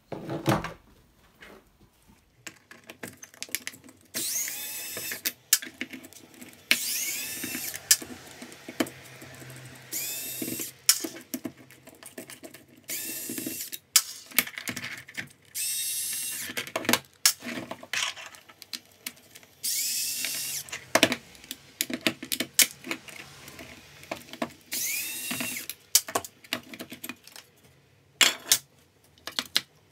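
Small cordless electric screwdriver spinning up in several short runs of about a second each, each with a rising whine, as it backs out the screws of a Makita 6222D drill's plastic housing. Between runs come sharp clicks and clatter of screws and parts being handled.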